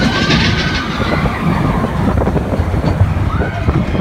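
Mine-train roller coaster cars rumbling and rattling along the track at speed, the wheels clattering over the rails.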